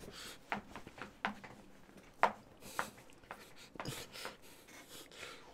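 Faint, scattered knocks and thuds, several short single hits spaced unevenly over a few seconds.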